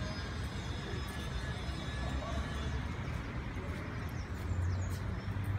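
Outdoor city ambience: a steady low rumble of traffic on a nearby street, with faint distant voices.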